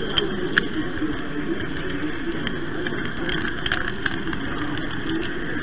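Model train running along the layout, heard from a camera car riding on it: a steady rolling rumble of small wheels on the track with irregular sharp clicks as they pass over rail joints.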